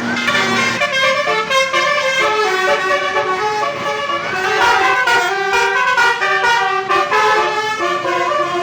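Bus 'basuri' telolet horn, a multi-trumpet horn, playing a fast melody of short stepping notes, often several tones sounding together.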